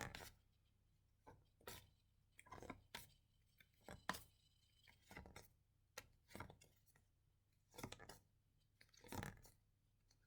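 Near silence with faint, short clicks and rustles every second or so: a pack of phonics flashcards being handled as each card is shown in turn.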